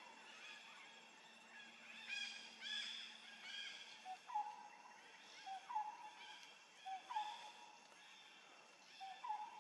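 Animal calls: a short two-part call, a low note stepping up to a higher one, repeated about every second and a half from about four seconds in, after some higher chirps.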